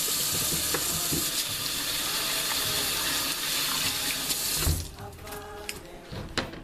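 Tap water running into a sink while hands are washed under it. About three-quarters of the way through there is a low thump and the rush of water becomes much quieter.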